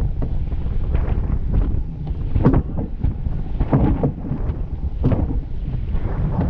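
Wind buffeting the microphone on a racing sailboat under way, over a steady rush of water along the hull. A few louder splashes break through, the first about two and a half seconds in.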